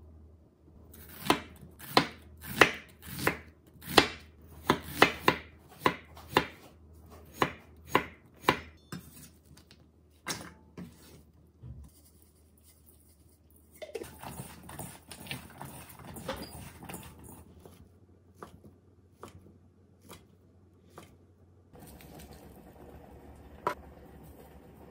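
Knife chopping on a wooden cutting board: a run of about fifteen sharp knocks, roughly two a second, over the first nine seconds. Later come a few seconds of rustling with light clinks as sliced cucumber is tossed in a stainless steel bowl.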